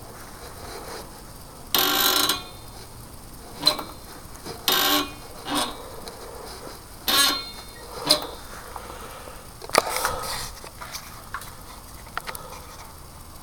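Ungreased pivots of a homemade mousetrap-spring lever mechanism creaking as its cable is pulled and released, about seven short creaks in the first ten seconds; the creaking comes from the parts not yet being greased.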